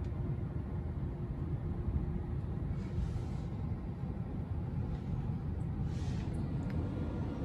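Steady low rumble inside the cabin of a 2021 Tesla Model 3 creeping forward at walking pace, with a faint hum that fades about a second in.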